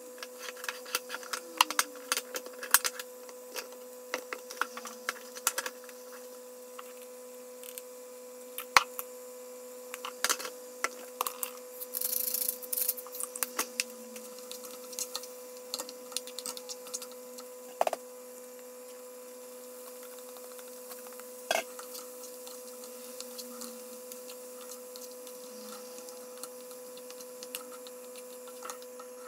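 Wooden spatula tapping and scraping in a non-stick frying pan while mushrooms and celery are stirred, the taps quick and frequent at first, then sparser. A brief hiss about twelve seconds in, over a steady hum.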